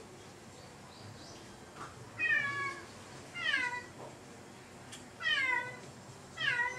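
Domestic cat meowing four times, each meow falling in pitch and lasting about half a second.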